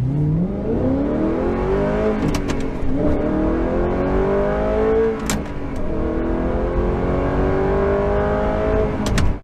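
A car engine accelerating hard through the gears: its pitch climbs, drops at a gear change about 2 s in and again about 5 s in, then climbs again.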